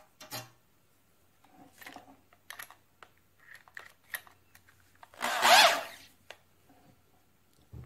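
Light clicks and taps as a drill bit is handled and fitted into a corded drill's chuck, then a short whirring burst of under a second from the drill about five seconds in, as the bit is set in the chuck.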